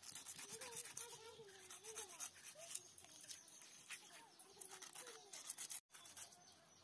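Rapid, repeated scraping strokes as small river fish are rubbed by hand against a wet stone slab, cleaning off their scales.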